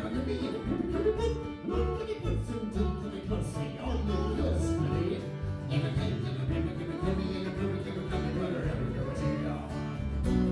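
Live acoustic string band playing an instrumental passage in a bluegrass-country style: fiddle over strummed acoustic guitar and a steady bass line.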